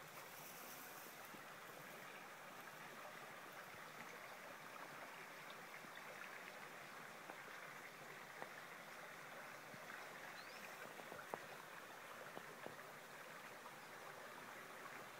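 Faint, steady rushing of running water, with a few soft ticks scattered through it.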